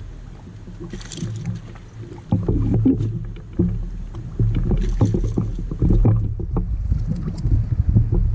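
Small waves slapping irregularly against the hull of a bass boat, with low knocks and two brief gusts of wind on the microphone, about a second in and around five seconds in.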